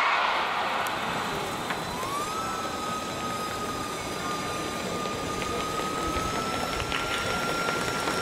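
Stadium noise dying away just after the start of a 100 m race. About two seconds in, a steady siren-like tone slides up and then holds one pitch until near the end.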